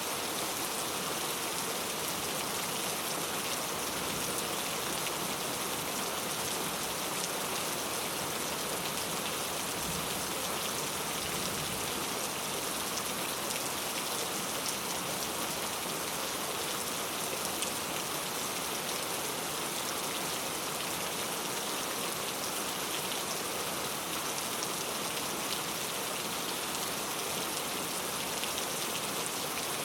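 Steady rain falling, drops pattering on a surface with no thunder.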